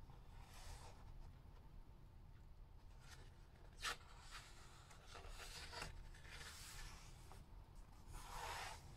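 Faint rustling and swishing of a picture book's paper pages being handled and turned, with one sharp tap a little before four seconds in.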